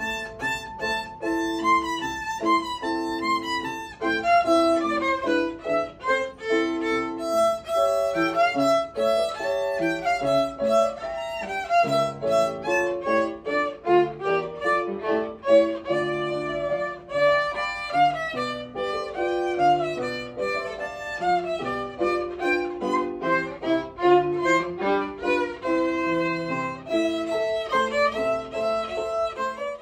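A child playing a concerto on a small, fractional-size violin, a continuous flow of bowed notes that change quickly from one to the next.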